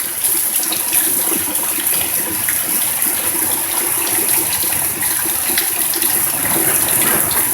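Fairly heavy rain coming down steadily: a dense hiss of falling water with scattered close drop hits ticking through it.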